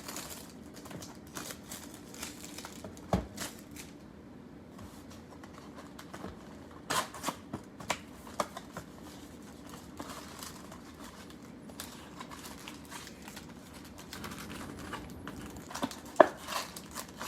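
Plastic wrapping crinkling and tearing as a box of trading cards is unwrapped, with scattered sharp clicks and taps of cardboard being handled.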